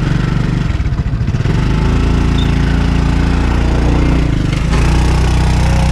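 Small motorbike engine running under throttle on the move, its note shifting about a second and a half in and again just before five seconds. The bike is being pulled in second gear, where the rider says it won't accelerate.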